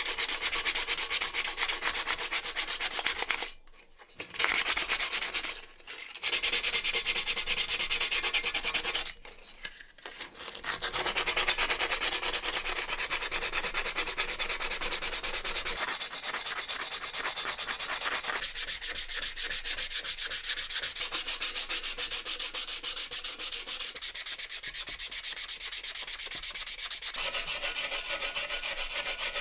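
Sandpaper rubbed by hand over the rusty steel shell of a Soviet firefighter's helmet, taking the rust off: quick, continuous scratchy back-and-forth strokes. The sanding stops briefly three times in the first ten seconds, and its texture shifts a few times later on as the hand moves over the shell.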